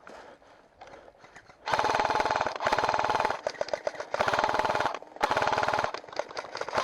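G&P M249 airsoft electric gun firing about five long bursts of rapid full-auto fire, a dense even rattle of shots with short pauses between bursts, starting about a second and a half in.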